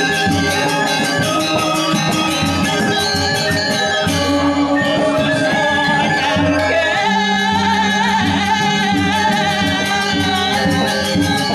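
Balinese gamelan playing dance music for the Telek dance: layered bronze metallophone tones over a fast, even beat, which breaks off briefly about four seconds in.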